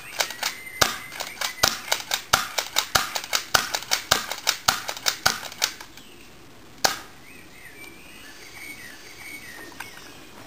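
A rapid, uneven run of sharp clicks and cracks, about three to four a second: airsoft BBs fired at a drinks can and striking the can and the wooden steps around it. The clicking stops about six seconds in, one louder crack follows a second later, and then birds chirp faintly.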